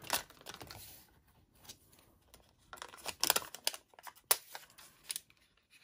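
Light crinkling and crackling of a glue-dots strip's liner being handled and pulled at, in scattered small clicks that are thickest about three to four seconds in.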